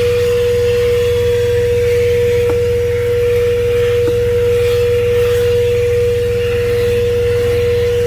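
A THISWORX 12-volt handheld car vacuum running steadily with a constant mid-pitched whine and a rush of air, over the low, steady rumble of the truck's idling engine.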